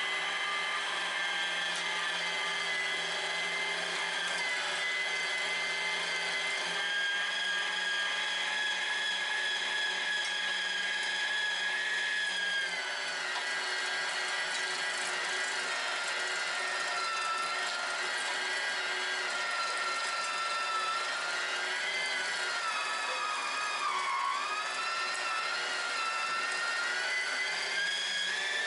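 Electric meat grinder's motor running steadily as deer trimmings with sinew and fat are fed through the auger. Its whine drops in pitch about halfway through and dips briefly again later on.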